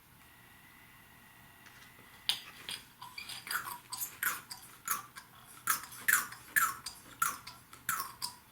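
Scissors snipping through a scrap of plastic paint protection film, a run of sharp crisp cuts about one or two a second, starting about two seconds in.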